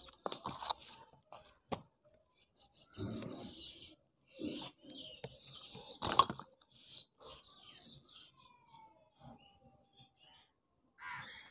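Faint clicks and knocks of hands working a wire through a hole in a plastic motorcycle battery lid and handling tools, with a sharper click about six seconds in; small birds chirp in the background.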